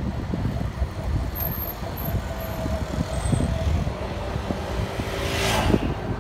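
Wind buffeting a phone's microphone as a low, uneven rumble, with street traffic on a bike path; a rushing swell about five and a half seconds in as a vehicle passes close.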